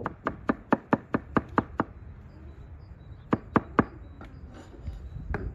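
A large kitchen knife chopping onion on a thick wooden chopping block: a quick run of about nine knocks, a pause, then three more knocks a little after three seconds in.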